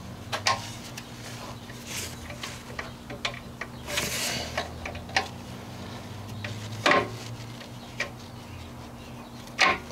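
The lathe's belt-driven drive, an electric motor turning an old car transmission, runs with a steady low hum while the gearbox is shifted by hand from second up into third gear. Scattered clicks and knocks of the shifter and gears sound over it, with a short rattle about four seconds in and the loudest clunk about seven seconds in.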